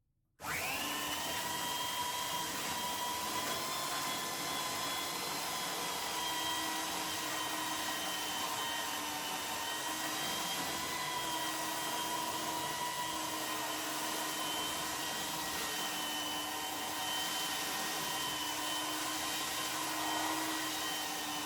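Jellas 750 W electric belt sander on speed setting 3 switching on just after the start and running steadily under load, its 80-grit belt sanding a hard painted coating off a board. The motor gives a steady whine with several fixed tones over the rush of the belt.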